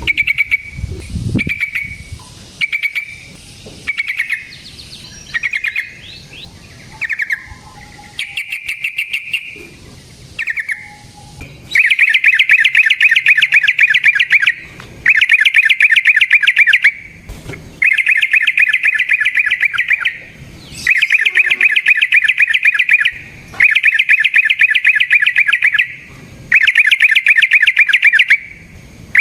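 Yellow-vented bulbul (trucukan) singing: short chattering phrases about once a second, then from about twelve seconds in loud, rapid rolling trills of two to three seconds each, repeated with brief pauses. This is the long trilling (ropel) song used as a lure to provoke other bulbuls into answering.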